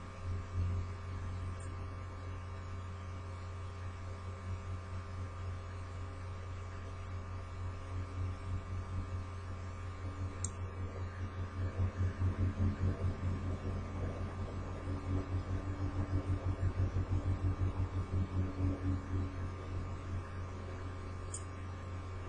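Steady low electrical hum with faint steady high tones above it. From about seven to twenty seconds in, it pulses rhythmically, about five times a second.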